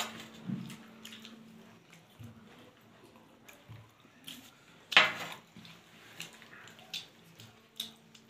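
Scattered small clicks and clinks of hands and a spoon on plates at a glass table while momos are eaten, with one louder knock about five seconds in, over a faint steady hum.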